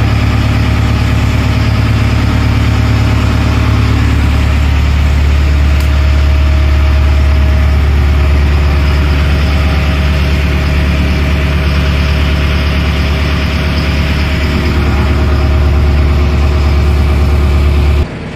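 Motorboat engine running steadily with a deep, even hum, cutting off abruptly just before the end.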